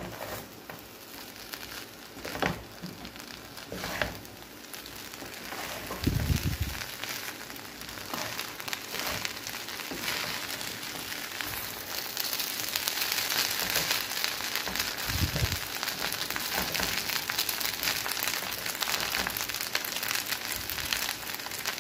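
Fried rice sizzling and crackling in a nonstick frying pan as it is stirred and tossed with a wooden spatula, with a few knocks of the spatula against the pan. The sizzle grows louder and denser about halfway through.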